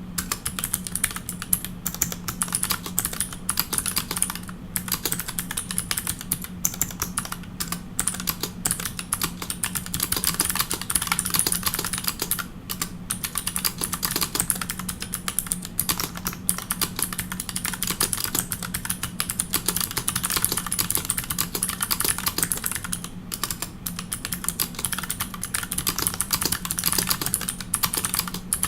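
Fast, continuous typing on a Pearl 40% mechanical keyboard with custom clicky MX-style switches and GMK keycaps: a dense stream of sharp key clicks, broken by brief pauses a few times.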